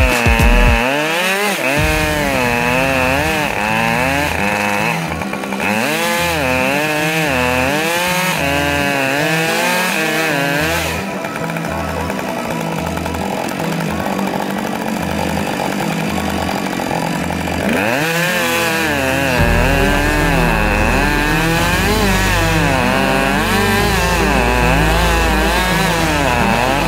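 Chainsaw running under load, cutting into a large tree trunk from behind the felling notch: the back cut that fells the tree. Background music with a wavering melody plays over it for much of the time.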